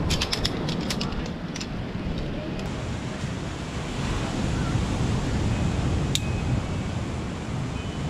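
Heavy wind buffeting the microphone in a steady low rumble, with a few sharp ticks in the first second and a half and one more later on.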